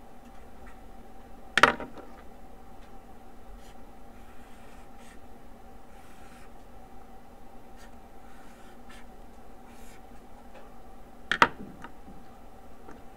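Felt-tip marker scratching faintly on paper, with two sharp clicks, one about one and a half seconds in and one near the end, over a steady faint hum.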